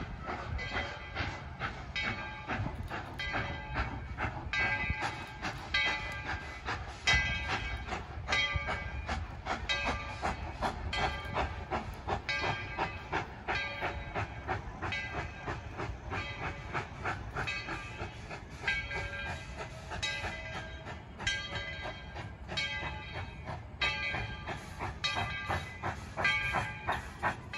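Narrow-gauge train running on the track: a steady low rumble of the cars with quick, repeating wheel clatter and short metallic ringing from the wheels and rails.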